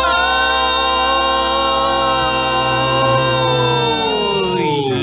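Show music: a long held chord with steady bass that slides down in pitch about four seconds in.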